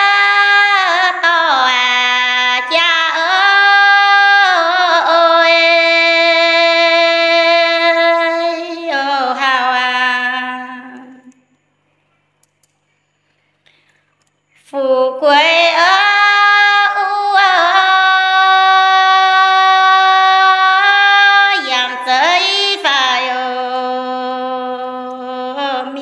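A woman singing a Red Dao song unaccompanied, in two long phrases of held, wavering notes with a pause of about three seconds between them.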